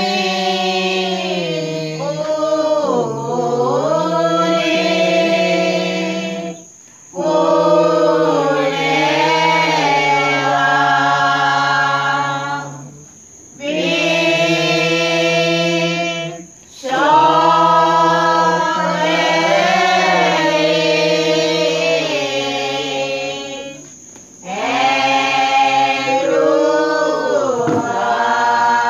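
A group of voices singing a Sinhala Pasan (Lenten Passion hymn) unaccompanied, in slow, drawn-out phrases with bending notes. The singing breaks off briefly four times.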